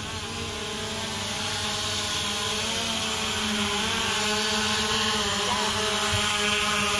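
SJRC F11 4K Pro quadcopter's brushless motors and propellers buzzing as it hovers low and comes down onto the grass, growing louder as it nears, its pitch wavering a little with the throttle.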